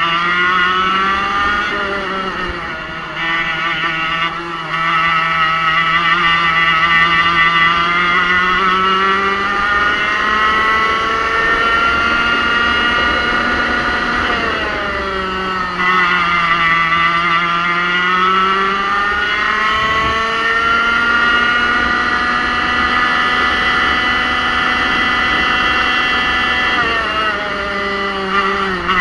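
Racing go-kart engine running hard, its pitch climbing steadily as the kart gathers speed. The revs drop away about halfway through, climb again, then dip briefly near the end.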